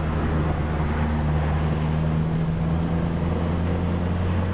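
Car engine pulling the car uphill, heard from inside the cabin. Its steady drone shifts pitch a little about halfway through, over constant tyre noise on the wet road.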